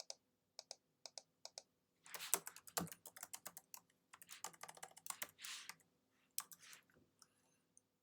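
Typing on a computer keyboard: a few separate key presses, then a quick run of keystrokes lasting a few seconds, then a few more taps near the end.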